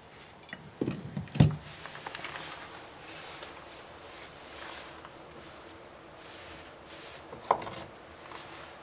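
A large glass bottle set down on a wooden floor, a few knocks about a second in ending in one solid thud, then light handling noise and another sharp knock near the end as objects on a wooden shelf are picked up.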